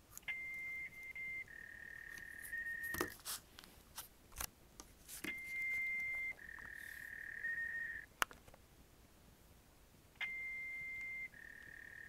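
Repeating electronic tones played back from a voicemail over a phone line. A steady high beep of about a second drops to a slightly lower tone of about a second and a half that ends in a brief warble, and the pair comes round about every five seconds. A few sharp clicks fall between the first two cycles.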